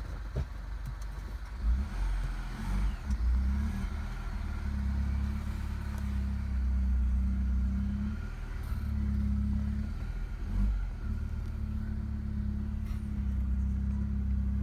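Mini Cooper's turbocharged 1.6-litre four-cylinder engine idling steadily as it warms up after a cold start, with a few knocks and clatters of tools being put away.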